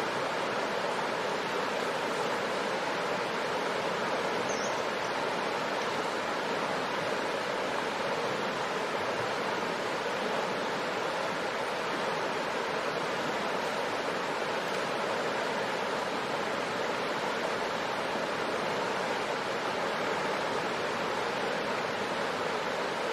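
Shallow river rushing steadily over rocks, a constant even wash of water noise.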